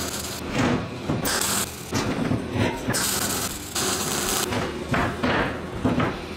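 Electric arc welding on a steel square-tube frame: two long stretches of crackling hiss from the arc, about a second in and again around three seconds in, with knocks of the steel frame between them.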